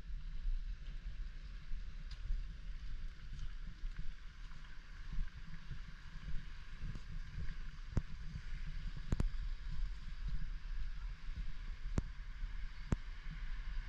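A boat under way at sea: a low, uneven rumble with the rush of water and wind, broken by four sharp clicks in the second half.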